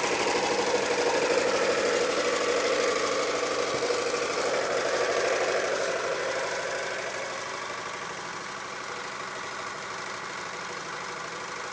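Small 6.5-horsepower single-cylinder engine idling steadily while it drives a permanent-magnet alternator under a light load of about 90 watts. It grows quieter a little past halfway.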